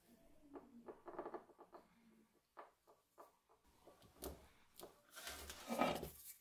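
Nitrile-gloved hands handling small parts: crinkling glove and light clicks as metal pins are pushed into the epoxy-coated wooden handle scale of a meat cleaver. The loudest rustle comes near the end, as the cleaver's tang is brought over the scale.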